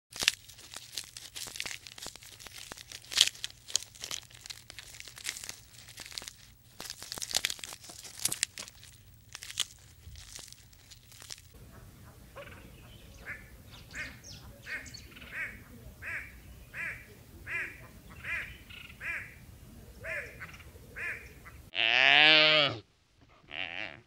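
A hornbill calling: a run of short, nasal, quacking calls about two a second, after several seconds of crackling clicks. Near the end a wildebeest gives one loud grunting call that falls in pitch.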